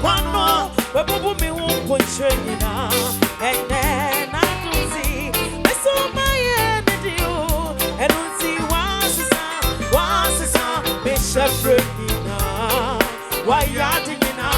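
Gospel band music with a lead voice singing over drums and bass keeping a steady beat.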